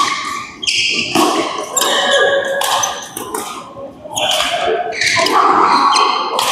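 Badminton rackets striking a shuttlecock in a rally: a string of sharp hits, roughly half a second to a second apart, echoing in a large sports hall.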